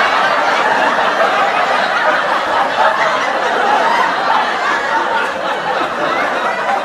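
Sitcom studio audience laughter: many people chuckling and laughing together in a steady, continuous wash.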